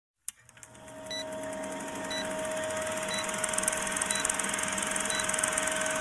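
Film-countdown sound effect: an old film projector running with rapid clicking, crackling hiss and a steady hum, fading in over the first second, with a short high beep once each second marking the count.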